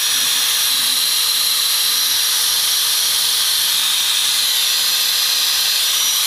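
Electric angle grinder running free with no disc fitted, a steady high-pitched whine at constant speed.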